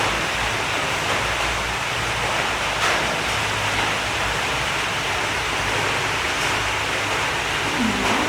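A steady rushing hiss with a low hum underneath. A short, low wavering tone comes in near the end.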